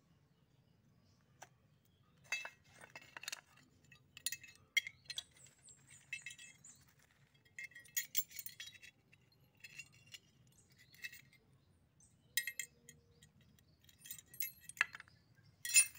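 Small steel parts of a rubber-band crossbow mechanism clinking and clicking as they are handled and fitted together: a steel pin worked into a perforated sheet-metal channel. The taps come in irregular clusters with short gaps, and the sharpest clink comes near the end.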